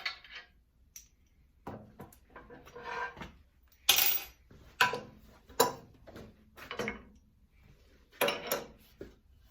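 Metal hand tools clanking and clinking against the steel guard of a stomp shear as the guard is worked loose, in about eight irregular strikes with short ringing. The loudest is about four seconds in.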